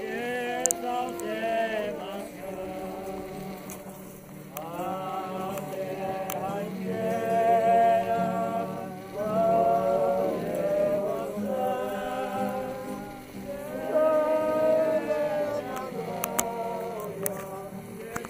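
A crowd of worshippers singing a procession hymn together, in slow phrases of long held notes.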